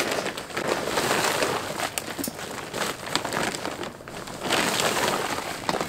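Large plastic sack of soil rustling and crinkling as handfuls of dry mix are scooped out of it by hand, louder for a moment near the end.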